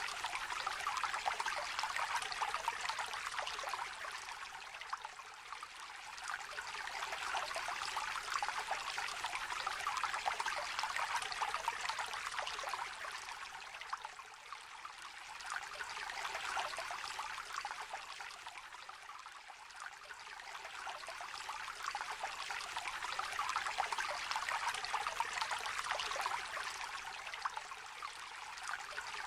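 A small river trickling and babbling over stones, a steady bright splashing that swells and eases gently every few seconds.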